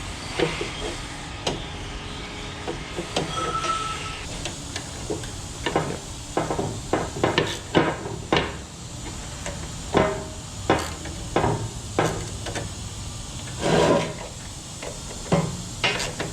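Hand tools and metal engine parts knocking and clinking in irregular sharp taps as the engine is taken apart, with a longer clatter about two thirds of the way through.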